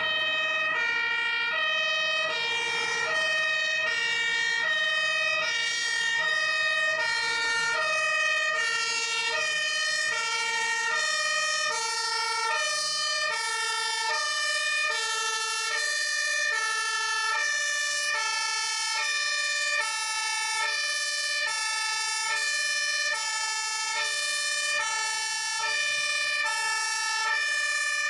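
German fire engine's two-tone siren (Martinshorn) sounding steadily: two notes alternate, each held about half a second.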